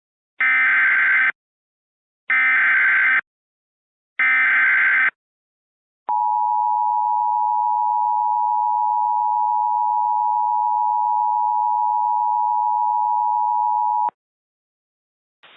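Emergency Alert System header: three short bursts of warbling SAME digital data tones, about a second each and a second apart, then the EAS attention signal, a steady two-tone alarm held for about eight seconds. Together they announce a severe thunderstorm warning.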